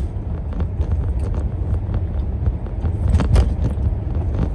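Steady low rumble inside a car, with scattered clicks and knocks as the handheld phone is moved; the loudest knock comes about three seconds in.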